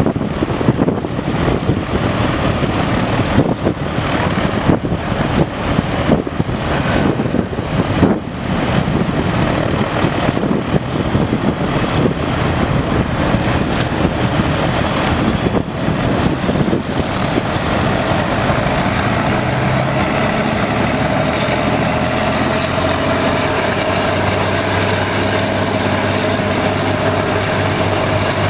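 Hovercraft engines and propellers running, with a steady drone and wind buffeting the microphone in the first half. In the second half a high whine rises in pitch and then holds steady over an even engine tone.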